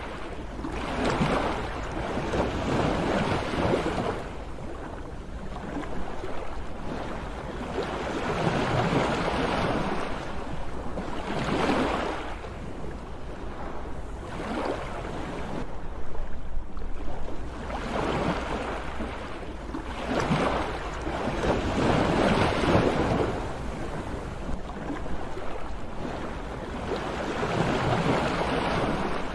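Sea waves washing in, swelling and falling back every few seconds, over a steady low rumble.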